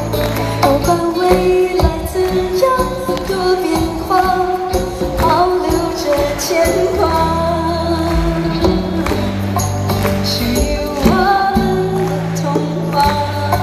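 Live band music with a female singer: sustained bass notes, drum hits and a melody line, played loud through a concert sound system.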